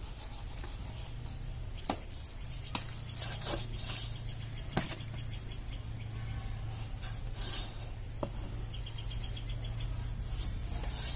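Large knife cutting boiled pork on a wooden chopping block, with a few sharp knocks of the blade meeting the wood, over a steady low hum. Birds chirp faintly near the end.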